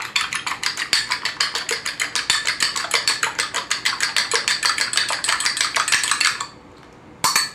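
Egg wash being whisked in a small ceramic bowl: the utensil clicks against the bowl quickly and evenly, about nine times a second, then stops shortly before the end, followed by one brief tap.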